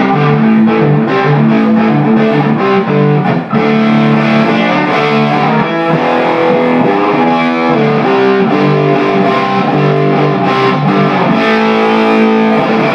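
Electric guitar played through a 10-watt 6AQ5 valve amplifier (GR JKD) on its high-gain channel, a continuous run of overdriven riffs and chords.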